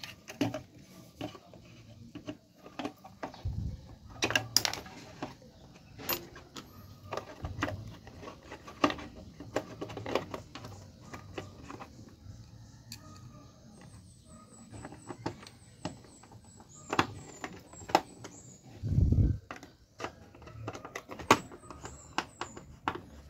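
Plastic clicks, taps and knocks of a CRT TV's front-button circuit board and its wire harness being handled and fitted back into the plastic cabinet, with a dull thump a few seconds in and another near the end.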